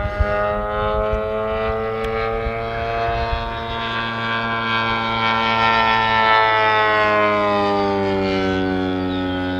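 Desert Aircraft DA-150 twin-cylinder two-stroke gas engine and propeller of a giant-scale RC biplane in flight, a steady drone. Its pitch falls slowly over the second half as the plane pulls up into a vertical climb for a loop.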